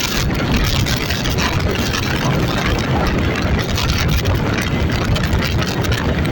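An engine running steadily, with a heavy low rumble and a rushing noise over it.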